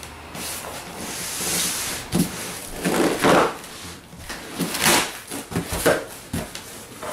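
Large cardboard shipping box being opened by hand: the flaps are pulled back and the cardboard rubs and scrapes in a few bursts, with a couple of light knocks near the end.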